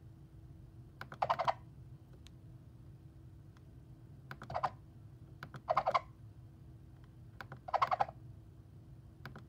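A cartoon sound effect: four short bursts of rapid clicks, each about a third of a second long, about one, four and a half, six and eight seconds in.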